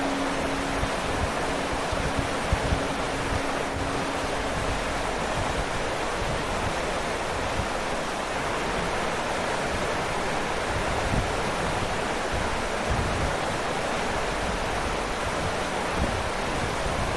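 Waterfall rushing in a steady, even wash of water noise, with a low steady hum that fades out in the first few seconds.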